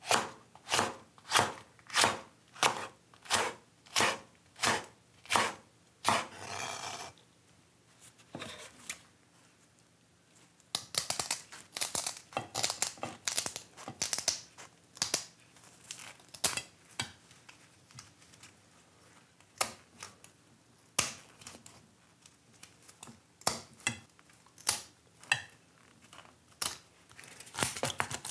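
A kitchen knife chopping a red chili pepper on a wooden cutting board, about two strokes a second, ending in a short rasp. After a pause, kitchen shears crunch and snip through a raw sea bream's tail in a quick run of cuts, followed by scattered knife strikes into the fish on the board.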